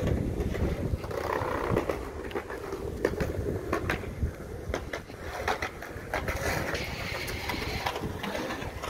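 Street ambience heard while walking on a concrete sidewalk: irregular footstep and handling clicks over a low rumble of wind on the microphone, with road traffic in the background.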